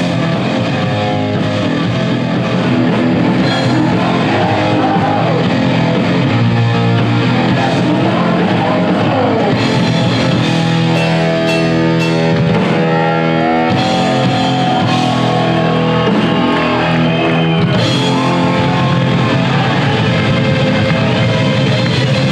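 Heavy metal band playing a rock song: distorted electric guitars over a drum kit, with some singing.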